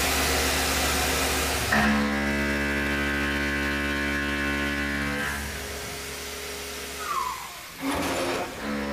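Tormach 1100 CNC mill's spindle running with a steady hum and whine as a Shear Hog face mill roughs an aluminium block. A cutting hiss drops away about two seconds in, and a falling tone comes about seven seconds in.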